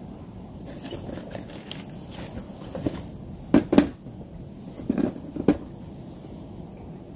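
A few short knocks and rustles close by, a pair about three and a half seconds in and two more around five seconds, over a faint steady hiss.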